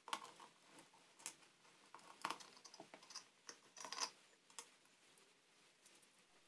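Faint, scattered clicks and taps of a small screwdriver-type line tester turning out the screws of a plastic lamp holder, and of the loosened screws and holder being handled.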